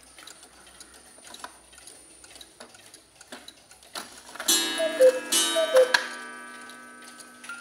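Mechanical Black Forest cuckoo clock ticking, then calling twice about four and a half seconds in: each call is a falling two-note cuckoo with a gong strike that rings on and fades.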